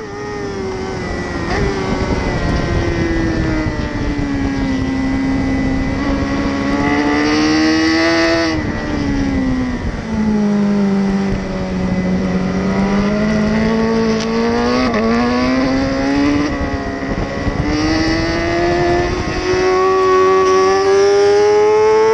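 BMW S1000RR's inline-four engine heard from a camera on the bike at speed: revs fall off into a corner, build again, drop sharply about eight seconds in, then climb steadily over the last several seconds. Wind rushes over the microphone throughout.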